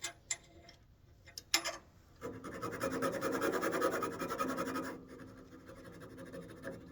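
A rasp filing a detail notch into a walnut rosette held still in the lathe chuck. A couple of light clicks come first, then about three seconds of steady rasping that continues more quietly afterwards.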